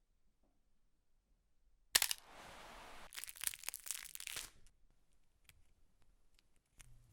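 Close-miked foley noises: a sudden sharp crack about two seconds in, then about a second of hiss, then a run of crinkling, tearing crackles that thins out into scattered small clicks.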